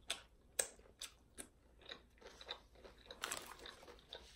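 Close-up chewing of crunchy food: a string of short, sharp crunches, irregular and about two a second, loudest about half a second in and again past three seconds.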